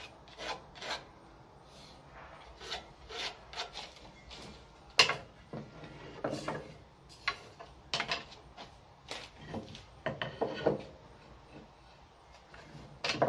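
Wooden spatula and spoon blanks and jigs being handled on a wooden workbench: irregular knocks, clacks and scraping as pieces are picked up, set down and slid against each other. The loudest clack comes about five seconds in, with another near the end.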